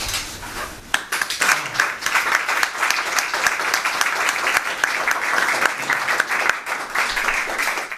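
Small audience applauding, dense hand clapping that starts about a second in and cuts off suddenly at the end.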